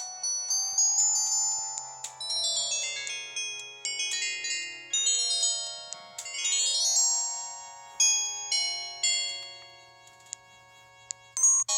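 Samsung SGH-C260 mobile phone playing one of its preloaded polyphonic ringtones: a bell-like mallet melody of struck notes that each ring and die away. It fades out about ten seconds in, and the next ringtone begins just before the end.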